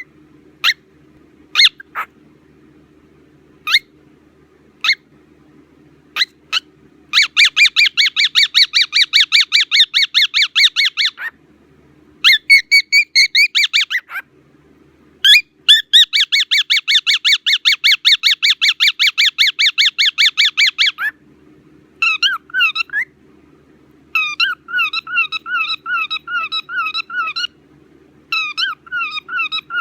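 Bird-like squawking and chattering: a few short separate chirps, then two long runs of rapid, buzzy pulsed squawks, then shorter warbling calls toward the end. A faint steady hum sits underneath.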